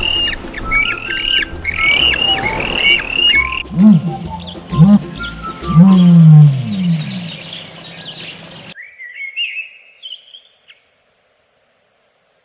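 Animal calls: a quick series of repeated high chirping calls, then three low calls that rise and fall, the third held longest, followed by a faint short bird call.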